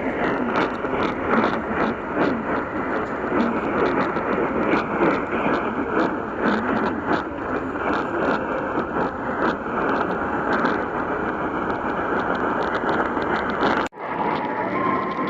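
Radio static from a weak, noisy broadcast signal: a loud, continuous hiss peppered with frequent crackles. It cuts out suddenly near the end, and a steady single tone starts just after.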